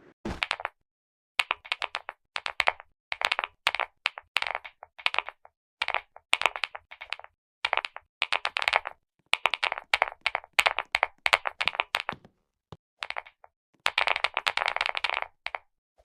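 Clicky keyboard keys pressed in quick runs, short bursts of rapid sharp clicks separated by brief pauses, with a longer unbroken run near the end.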